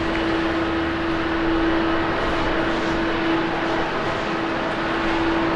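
Jet engines of an Airbus A350-900 airliner, Rolls-Royce Trent XWB turbofans, running as it rolls along the runway: a steady broad rush with a held mid-pitched whine.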